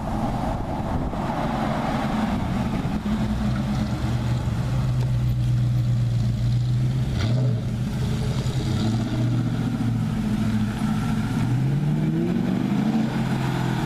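Ford Crown Victoria's 4.6-litre V8 exhaust droning steadily, with a brief dip in pitch about halfway through, then rising in pitch near the end as the car accelerates.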